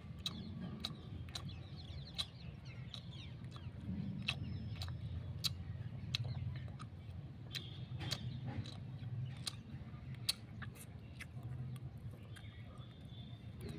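Raw sugarcane being bitten and chewed at close range, a run of sharp crunching clicks. Birds chirp and cluck in the background.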